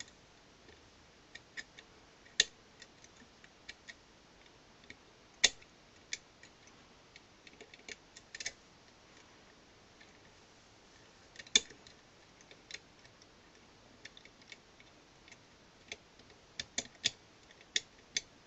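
Lever lock pick and tension tool working inside an ERA Invincible 5-lever mortice lock, the pick lifting the levers with scattered small metallic ticks and clicks. A few clicks are louder, and there is a quick run of them near the end.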